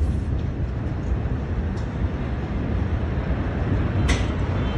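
A steady low rumble with no pitch to it, with a couple of faint clicks, the clearest about four seconds in.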